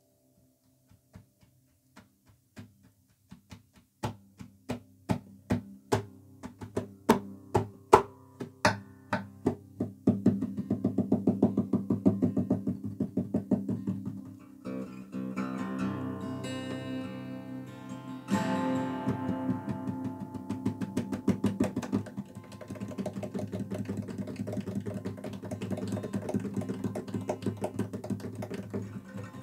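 Acoustic guitar played solo: a few scattered plucked notes, then evenly spaced strokes about two a second, building into fuller continuous strumming about ten seconds in.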